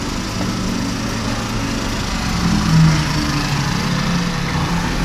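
A small engine running steadily, heard as a continuous hum.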